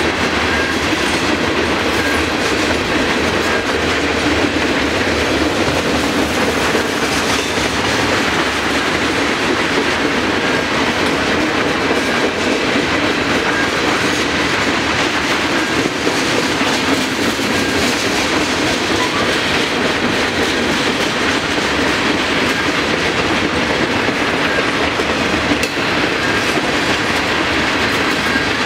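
Freight train cars rolling past at close range, a steady loud rumble with steel wheels clicking over the rail joints.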